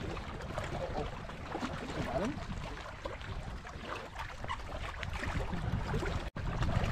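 Wind buffeting the microphone, with water lapping and trickling against the kayak's hull on choppy water; the sound cuts out for an instant near the end.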